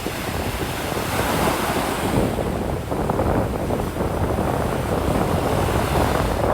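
Ocean surf breaking and washing up the beach, with wind buffeting the microphone. A hissing wash of water swells about a second in and fades.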